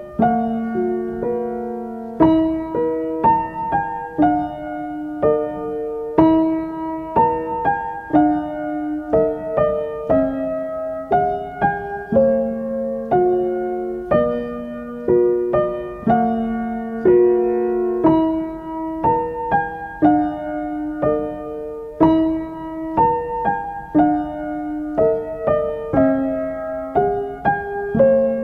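Background solo piano music: a gentle melody of evenly paced struck notes, each ringing and fading, in repeating phrases.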